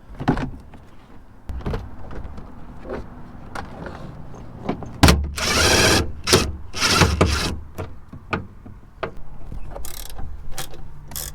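A ratchet wrench is used to loosen a seat belt retractor bolt in the car's interior, breaking it loose. Scattered clicks and knocks come first, then two loud spells of rapid ratchet clicking about halfway through.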